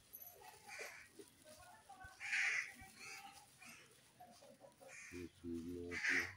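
Bird calls: a few short, harsh caws spaced a couple of seconds apart, the loudest about two seconds in.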